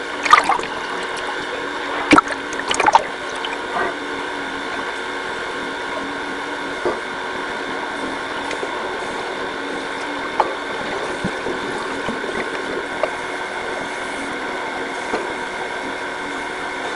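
Underwater ambience in a swimming pool: a steady hum, with scuba divers' exhaled regulator bubbles gurgling a few times in the first few seconds and a few faint ticks later.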